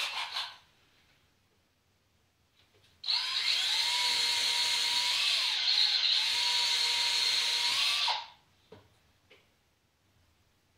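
Power drill with a brad point bit running for about five seconds, boring a pilot hole into wood. Its pitch dips briefly midway as the bit bites. A couple of small knocks follow.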